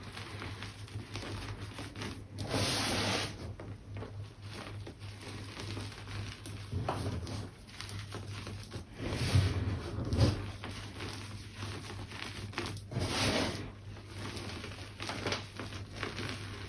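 Gym chalk being crushed and crumbled by hand, a soft crackling patter, with loud breaths through a face mask every few seconds.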